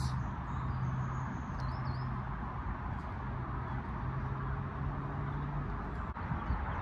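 Steady outdoor background noise with a low engine hum that breaks off a few times and stops near the end, and a short faint bird chirp about two seconds in.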